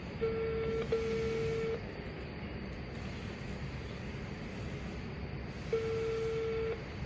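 Telephone ringback tone heard through a phone's speakerphone while the call waits to be answered: a steady mid-pitched tone about a second long, twice, about five seconds apart, the first with a brief break in it. A steady faint hiss lies underneath.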